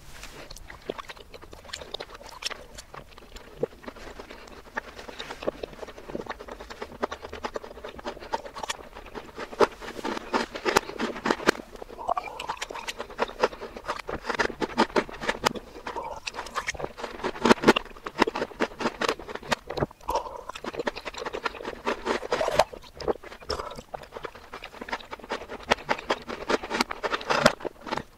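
Close-miked ASMR mouth sounds played backwards: wet gulps, slurps and chewing from drinking a milky drink with Maltesers in it, a dense run of wet clicks and smacks that grows louder about ten seconds in.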